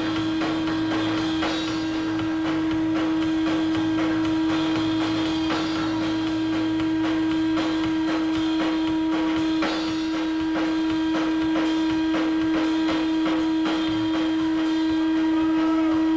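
Live rock band playing: a loud, steady droning tone held throughout, with drum strikes over it.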